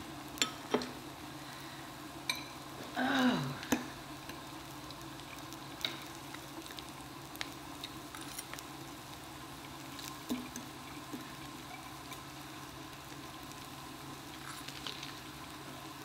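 Steady sizzle of meat and vegetables cooking on the grill plate of an electric hot pot, with light clicks of utensils through it and one short, louder sound about three seconds in that falls in pitch.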